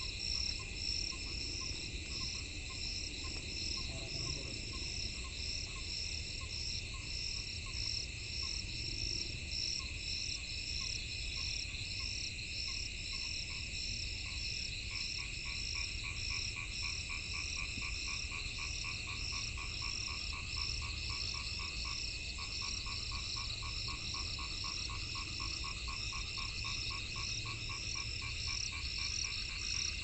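A night chorus of frogs calling in quick, evenly repeated pulses, over a steady high-pitched trilling. About halfway through, a faster, lower-pitched pulsing call grows stronger and keeps going.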